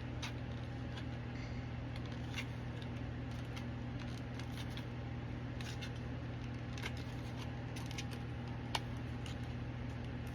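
A spoon prying at plastic packaging to work highlighters loose: scattered small clicks and scrapes, one sharper click near the end, over a steady low hum.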